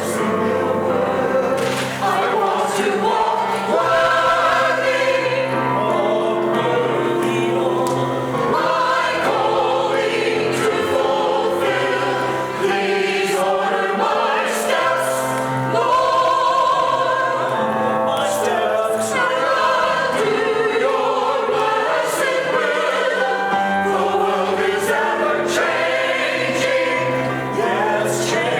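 A church choir singing with instrumental accompaniment.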